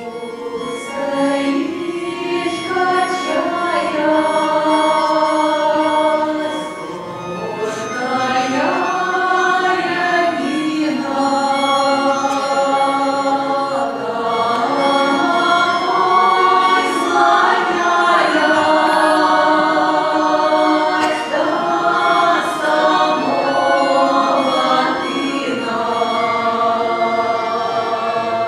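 Women's vocal ensemble singing a Russian song together in harmony, long held notes in several voices.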